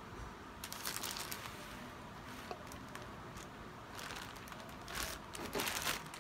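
Plastic courier mailer bag crinkling as it is handled, in a few short bursts about a second in and more often and louder from about four seconds on.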